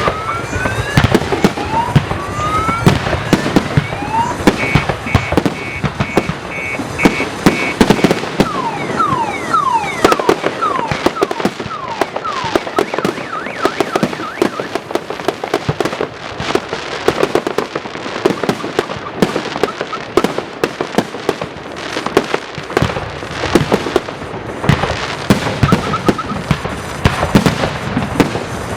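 Fireworks display: a continuous barrage of bangs and crackling bursts. Rising whistles of rockets in the first few seconds, and a cluster of falling whistles about ten seconds in.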